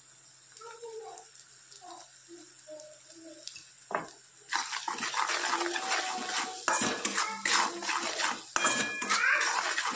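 Flat metal spatula stirring and scraping spices in oil around a steel kadai, with many quick scrapes and knocks against the pan; it starts about four and a half seconds in, after a quiet stretch and a single knock.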